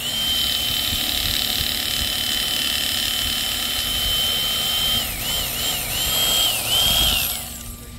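Bubba Blade electric fillet knife running with a steady high whine as it cuts a redfish fillet off the skin. After about five seconds its pitch dips several times as it cuts, then it winds down and stops near the end.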